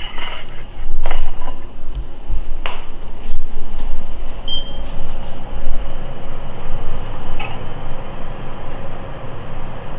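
A glass baking dish carried in oven gloves and set onto a metal oven rack: a few knocks and clinks of glass over a low handling rumble.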